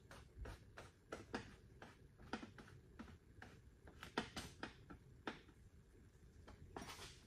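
Faint, irregular clicks and light taps of a plastic side cover being fitted back onto a dirt bike's air box by hand.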